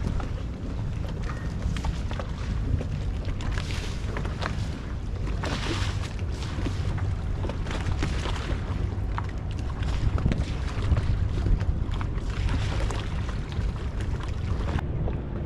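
Wind rumbling on the microphone over water slapping and lapping against moored gondolas and their wooden mooring poles, in irregular washes with scattered small knocks.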